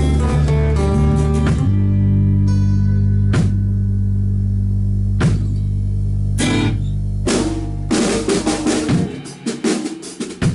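A band with drum kit and guitar playing the close of a piece: a low chord held under a few separate drum and cymbal hits, then a quick run of drum strokes as the music ends.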